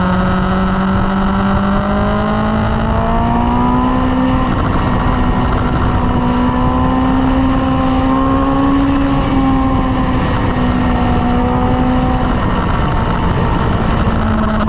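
Sport bike engine running at highway cruising speed, its note climbing slightly about four seconds in and then holding steady, with constant wind rush.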